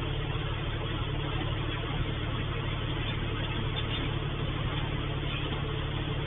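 Steady low mechanical hum under a constant hiss, unchanging throughout.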